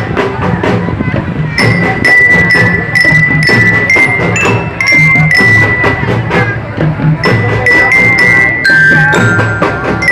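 Loud music with a regular drum beat, deep pulses underneath and a high melody of held notes stepping from pitch to pitch.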